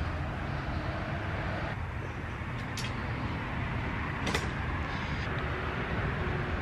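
Steady low background rumble with two brief faint clicks, about a third and two-thirds of the way in.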